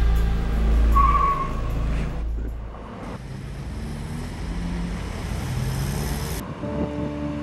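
Full-size pickup truck driving, with a short tire squeal about a second in over a heavy low rumble, then quieter engine and road noise heard from inside the cab.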